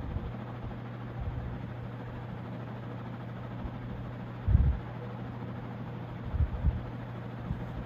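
54-inch Monte Carlo Studio ceiling fan running steadily on high speed, a low motor hum under a steady rush of air. A few short low thumps come about halfway through and again about two seconds later.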